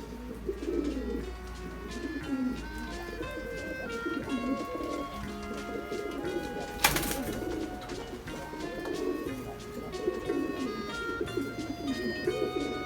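Nikolaev pigeons cooing over background music of held, stepping notes; a single sharp knock about seven seconds in.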